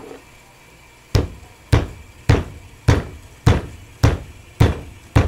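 A claw hammer striking a yellow translucent pad of athletic-cup protective material laid over a hand on a wooden workbench: eight sharp, evenly spaced blows about two a second, starting about a second in. This is an impact test of the groin-protection material.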